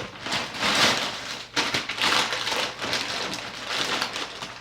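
Packing material rustling and crinkling in irregular surges as it is handled and pulled away during unboxing, with a short lull about a second and a half in.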